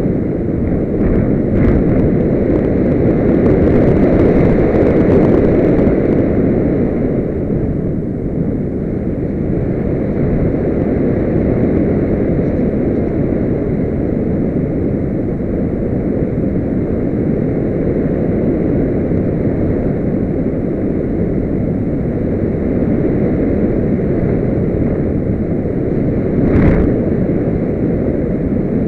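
Steady rush of airflow over the onboard camera's microphone of a Solius radio-controlled glider in flight, with no motor tone standing out. It is a little louder for the first few seconds, and a single short click comes near the end.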